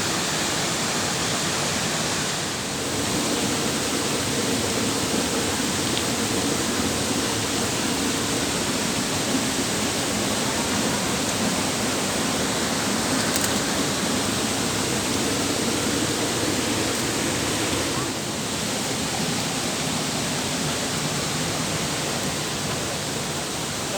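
Waterfall rushing steadily: a constant roar of falling water.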